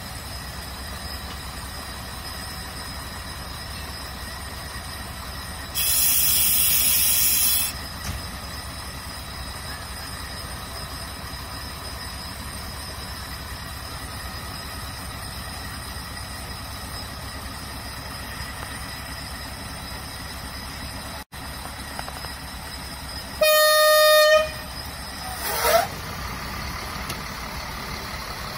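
A standing passenger train's engine runs low and steady. About six seconds in, a two-second hiss of air is heard. Near the end comes a single horn blast about a second long, followed a moment later by a short rising squeal.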